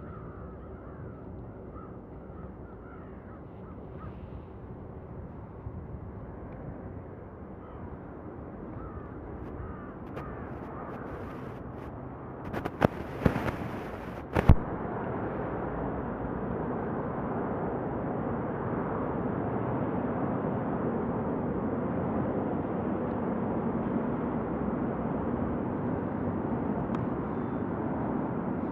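Airbus A310 on final approach: the jet noise of its twin turbofan engines, a steady rushing rumble that grows louder about halfway through as the airliner nears, then holds. Bird calls come in the first few seconds, and a few sharp knocks about halfway through are the loudest sounds.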